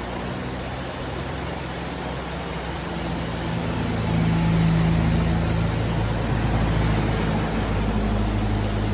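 Bus engine running under load, growing louder about four seconds in as the bus approaches, over a steady hiss.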